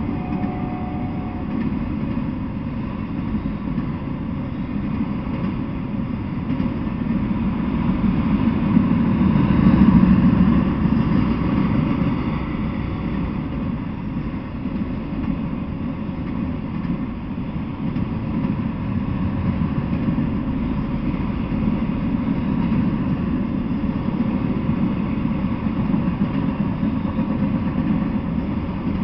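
Freight train of autorack cars rolling past: a steady rumble of wheels on rail, swelling about ten seconds in.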